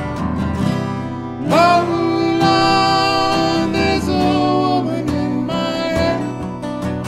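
Three acoustic guitars strummed in a steady rhythm, with a man's voice coming in singing about a second and a half in and holding long notes.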